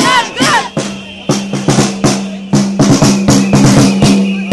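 Drums beating fast and loud in an irregular rhythm, with a steady low tone held under them. Shouting voices from the crowd are heard in the first half-second, before the drumming takes over.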